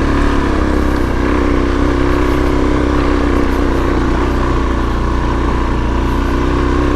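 Suzuki DRZ400S single-cylinder four-stroke dirt bike engine running at a steady, even pitch while riding a rocky single-track trail.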